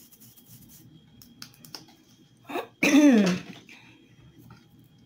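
A woman's brief wordless vocal sound, falling in pitch, about three seconds in. Before it, faint light clicks of a fork stirring batter in a plastic bowl.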